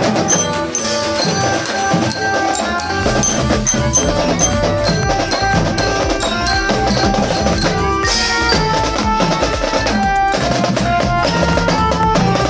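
Music with drums and bell-like mallet percussion playing a quick run of short notes over a steady beat.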